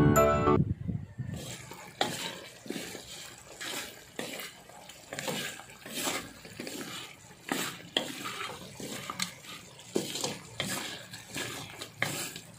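Water sloshing and splashing irregularly, with light knocks among the splashes, as chicken pieces are washed by hand in water.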